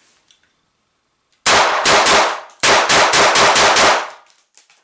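Browning GPDA9 blank pistol firing Walther 9mm P.A.K. blank cartridges in rapid succession: loud sharp shots about four a second, in two quick strings with a short pause between, starting about a second and a half in. The blanks cycle the action without problems.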